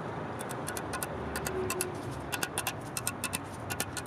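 Light, quick metallic clicks and taps, several a second in an uneven rhythm, each with a short ring, starting about half a second in over a steady low background hum.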